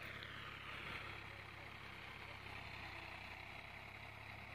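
Faint, steady drone of a far-off tractor engine running as it works the field.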